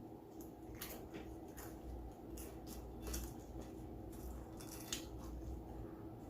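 Faint, irregular crackly clicks of close-up chewing and mouth sounds, about a dozen spread unevenly.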